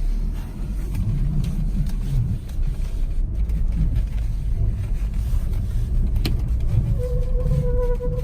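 Hyundai Creta 4WD on the move with a steady low road rumble; about seven seconds in, a steady whistle with overtones sets in, the whistle the 4WD car is known for.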